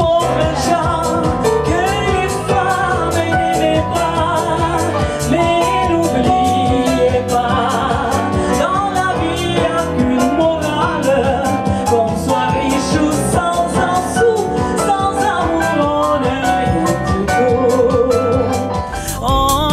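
Live music: electronic keyboard accompaniment with a steady beat and a woman singing into a microphone with vibrato.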